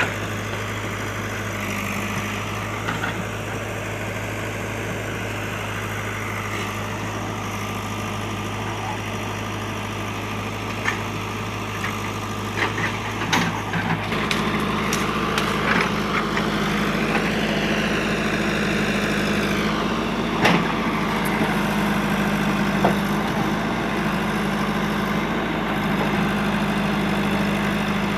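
JCB backhoe loader's diesel engine running steadily, its note stepping up to a higher pitch about halfway through as it works harder, with scattered sharp knocks and cracks over the middle part.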